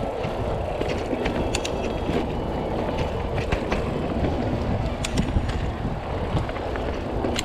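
Mountain bike being ridden over a dirt trail: a steady rumble of tyres and frame, with frequent sharp clicks and rattles from the bike jolting over bumps.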